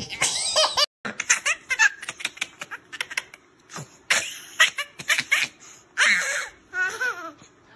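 Babies laughing: a toddler's laugh cut off about a second in, then an infant laughing hard in a long run of short, breathy belly-laugh bursts with some high squeals.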